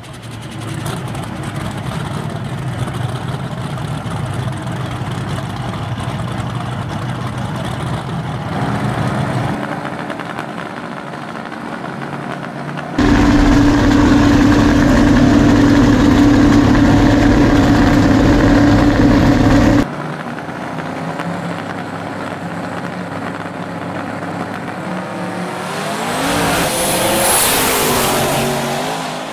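Drag race car engines: running with a steady engine tone, then a louder, steady engine stretch that starts and stops suddenly in the middle, and near the end a car accelerating hard with a rising pitch.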